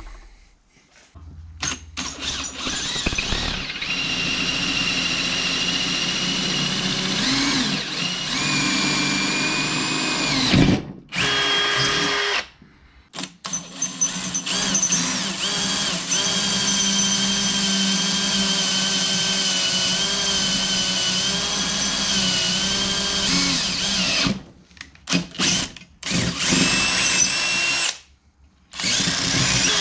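Cordless drill boring 5/16-inch holes through an aluminium Powerglide transmission case. It runs in long stretches with a couple of short stops and then gives several brief bursts near the end. The motor's pitch sags and recovers as the bit bites.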